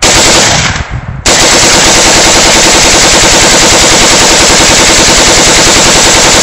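Semi-automatic rifle bump-fired from the hip: a short rapid burst, a brief break about a second in, then a long unbroken string of rapid shots at near full-auto speed.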